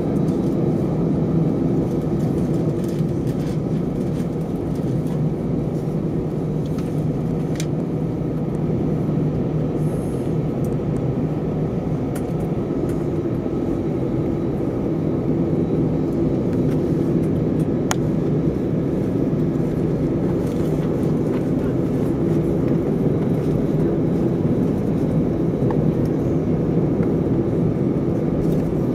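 Steady cabin rumble of an Airbus A320 taxiing, heard from inside the cabin over the wing, with the engines at low taxi thrust and a faint low drone. A few faint clicks come through.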